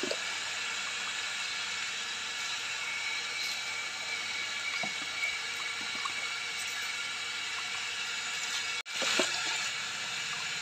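Water running steadily, a continuous rush with no pauses, that cuts out for an instant a little before the end.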